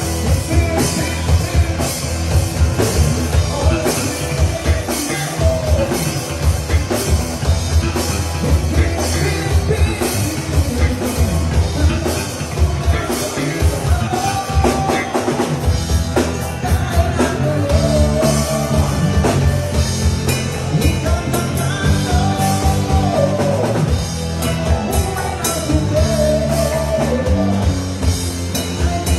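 Rock music with a busy drum kit keeping a steady beat and a melody line over it.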